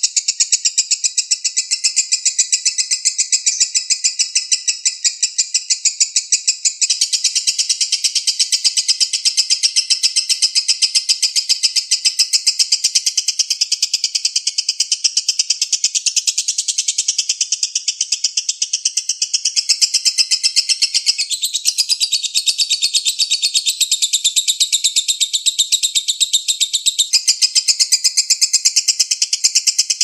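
Lovebird ngekek: a long, unbroken chatter of rapid, high, harsh notes with no pause, the continuous 'konslet' style prized by keepers.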